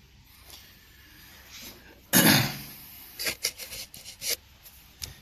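Handling noise close to the microphone: a loud rub about two seconds in, then a quick run of light clicks and knocks.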